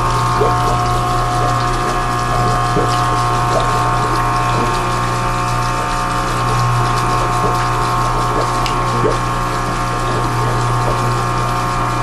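New Quiet One 9000 aquarium return pump running submerged in the sump: a loud, steady hum with water noise and faint irregular ticks over it. The owner finds it far too noisy for a new pump.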